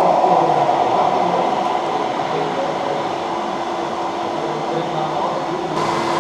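A scale RC semi-truck's sound module plays a steady diesel-engine drone over the hall's background din, easing off over the first few seconds as the truck drives away.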